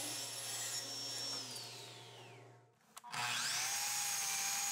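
A power saw's motor runs and then winds down, its whine falling away. About three seconds in, a miter saw switches on with a click, whines up to speed and runs steadily.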